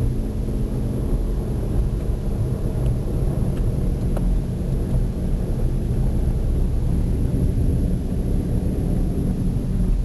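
Steady low rumble of a vehicle in motion, engine and road noise.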